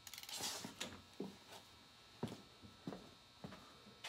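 A brief rustle and clatter, then a few soft footsteps about half a second apart, over a faint steady electrical hum.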